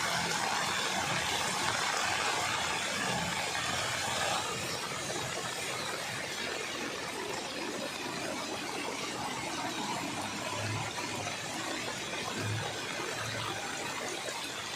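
A vehicle driving through floodwater: a steady rushing of water churned up by the wheels over the vehicle's running noise.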